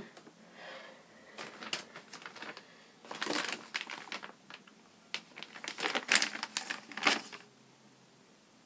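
Close rustling and crinkling noises in irregular bursts, loudest about three seconds in and again around six to seven seconds in, then dying away near the end.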